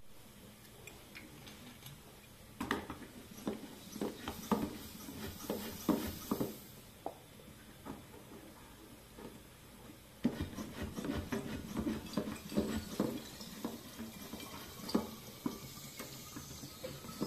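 Kitchen things being handled and wiped during cleaning: small knocks, taps and rubbing, in two spells of a few seconds each, with quieter taps between and after.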